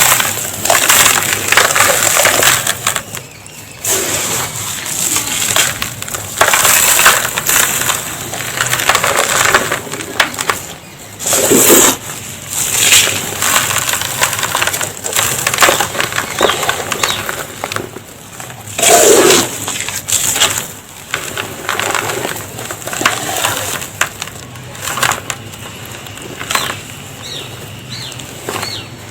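Dry red dust being poured and crumbled in a tub: a grainy hiss that comes in repeated swells, each one to a few seconds long.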